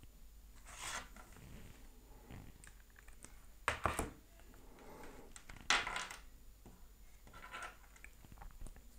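Quiet room tone broken by about four brief rustling noises close on a clip-on lavalier microphone.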